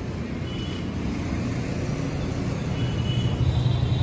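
Steady low background rumble, with faint brief high-pitched tones about half a second in and again near the end.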